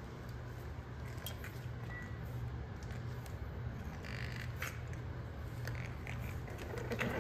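Puppies crunching dry kibble: small crisp crunches and clicks, over a steady low hum. A louder rustling scuffle about four seconds in.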